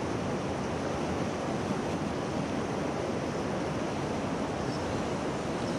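Steady rushing noise of flowing river water, even and unbroken.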